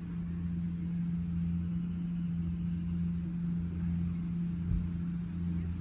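Steady low hum with a constant drone of road traffic beneath it. There is one soft low thump about three-quarters of the way through.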